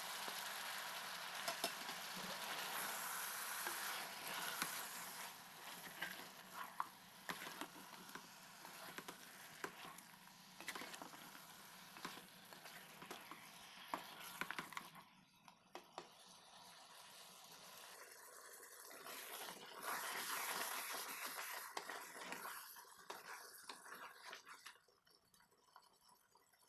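Chicken and freshly added diced tomatoes sizzling in a pot as the tomatoes cook down, with scattered sharp clicks over the sizzle. The sizzle drops away suddenly about halfway, comes back briefly, and fades near the end.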